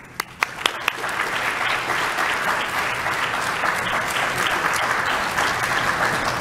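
Audience applauding: a few scattered claps at first, then steady dense applause from about a second in.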